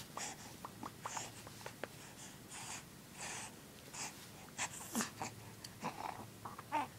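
Close breathing and snuffling with small clicks and rustles, in short breathy puffs, the loudest about five seconds in and again near the end.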